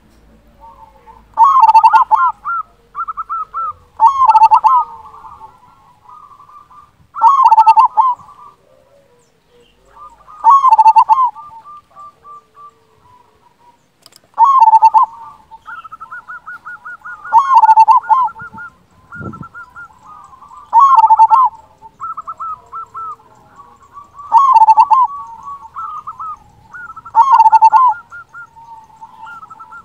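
A zebra dove (perkutut) cooing over and over: nine loud calls, one about every three seconds, with quicker, quieter staccato notes running between them.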